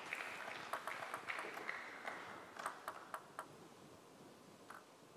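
Crowd applause dying away over about three seconds, with scattered single claps and a few sharp ticks after it fades.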